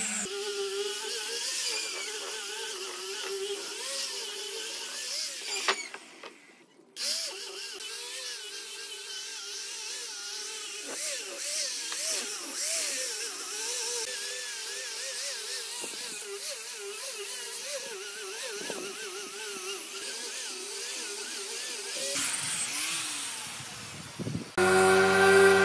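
Electric random orbital sander running on a wood-and-epoxy slab, its motor pitch wavering up and down as it is pressed and moved. It breaks off briefly about six seconds in. Near the end a louder, steadier-pitched sander motor starts up.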